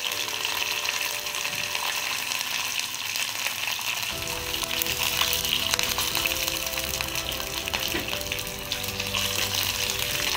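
Tempering of bay leaf, cumin, mustard seeds, curry leaves and green chillies sizzling and crackling in hot oil in a nonstick kadai. A steel spoon stirs it through the second half.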